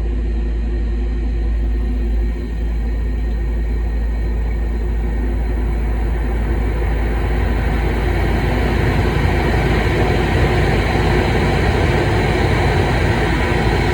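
Ruud furnace ECM blower motor running, a steady rush of air over a low hum that builds gradually over the first several seconds, then holds steady.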